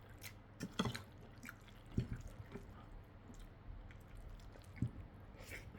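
Wet chewing and mouth sounds of someone eating stir-fried noodles, with scattered light clicks and a couple of soft thumps.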